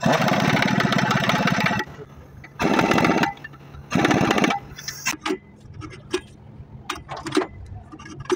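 Pneumatic impact wrench hammering in three bursts, one long and two short, as it runs down the bolts of a Mercedes-Benz Actros MP4 truck's clutch pressure plate onto the flywheel. Light metal clicks and knocks follow near the end.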